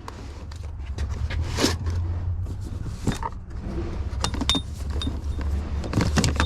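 Steady low hum of an idling vehicle engine, with scattered clicks and knocks of items being moved about.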